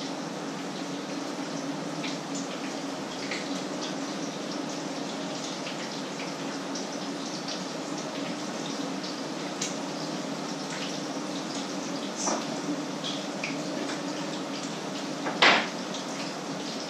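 Food frying in a pan on an electric stove: steady sizzling peppered with small crackles and pops, over a low steady hum. Two knocks of cookware sound, the louder one near the end.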